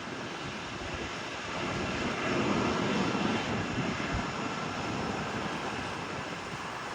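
Boeing 777-200ER jetliner with GE90 engines passing close by on landing: a broad jet rush that swells to its loudest about three seconds in, then eases off slightly.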